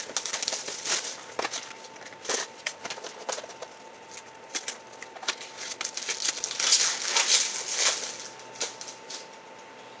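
Plastic shrink wrap being torn off and crinkled as a box of baseball cards is opened: a run of sharp crackles and rustles, busiest about seven seconds in.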